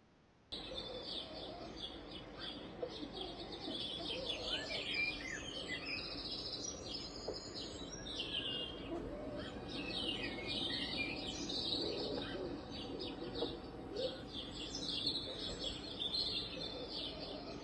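A recorded birdsong nature-sound track played through a sunrise alarm clock's small built-in speaker: many birds chirping and whistling continuously over a soft hiss, starting about half a second in.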